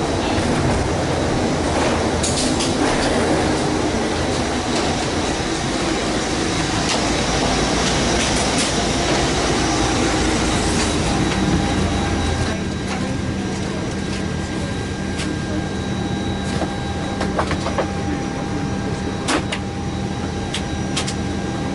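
Steady rushing machinery and air noise while walking down the jet bridge. About halfway through, on entering the Airbus A320's forward door area, it gives way to a steady hum of several held tones from the aircraft's systems. A few sharp knocks come near the end.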